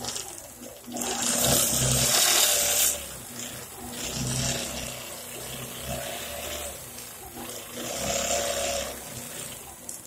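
APQS longarm quilting machine running and stitching, its motor whine wavering in pitch and louder in spells as the machine speeds up and slows down.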